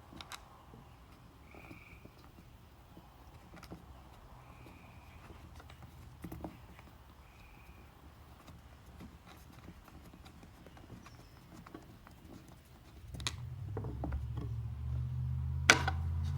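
Small screws and a panel being worked loose from a handmade puzzle box: scattered light clicks and taps with a few short faint squeaks. About two-thirds of the way in, a louder low rumble of handling noise starts, with two sharp clicks, the louder one near the end.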